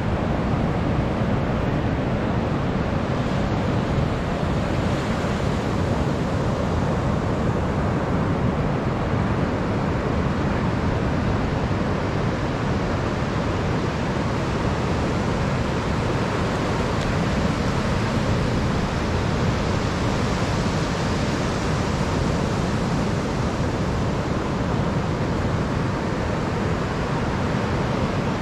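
Steady noise of ocean surf breaking on a beach, mixed with wind rumbling on the microphone.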